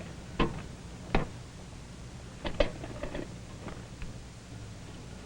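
A few scattered sharp clicks and knocks, like small objects being handled, over a steady low hum of an old film soundtrack.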